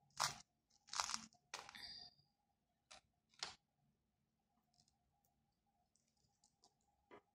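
Handling sounds of beadwork: three short scratchy rustles in the first two seconds, then two sharp clicks and a few faint ticks, as monofilament fishing line is drawn through a cluster of crystal beads.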